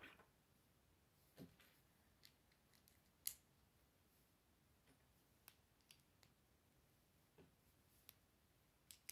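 Plastic Lego bricks being handled and pressed together, with scattered sharp little clicks and taps, the sharpest a little over three seconds in.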